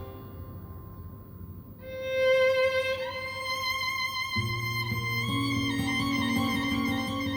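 Recorded music played through a 2.1 desktop speaker system and picked up by a phone held in front of the speaker: a violin melody of long held notes, with bass coming in about four seconds in.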